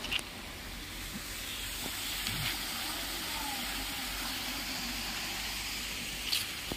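Shallow water running down a concrete dam spillway and along its wet apron: a steady hiss, with a sharp click just after the start and another near the end.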